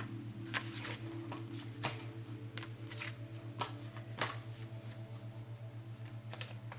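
Tarot cards being handled on a table: scattered light clicks and taps, most in the first few seconds and a couple more near the end, over a steady low hum.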